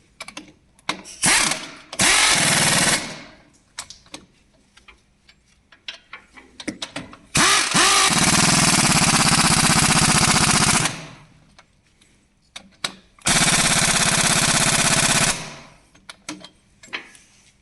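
Power impact tool hammering rapidly in bursts while working on suspension ball joints. There are two short bursts near the start, then two longer runs of three to four seconds each, with light metallic clicks and knocks in between.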